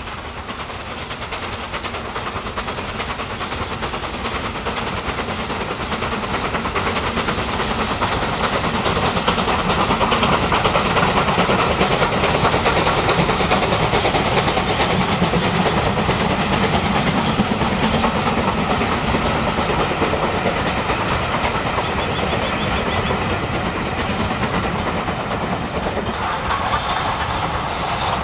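Two steam locomotives double-heading a passenger train, working hard past the listener: rapid chuffing exhaust beats with wheel clatter and steam hiss. It grows louder to a peak about halfway through, then eases a little, and the sound changes abruptly near the end.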